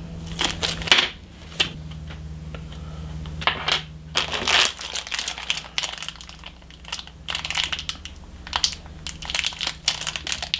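Crinkling and rustling in irregular bursts as small CPU-cooler mounting parts and their packaging are handled.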